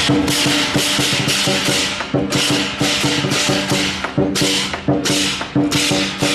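Lion dance percussion: a large drum beating with pairs of hand cymbals clashing in a steady rhythm, about two to three clashes a second, over a steady ringing tone.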